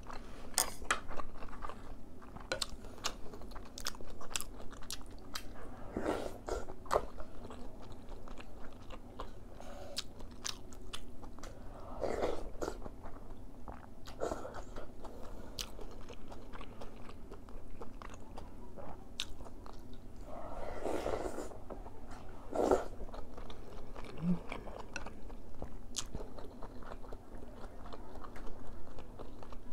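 Close-up eating sounds of a person eating ox-bone soup with rice and noodles from a spoon: wet chewing with many small clicks, and three longer slurps of about a second each.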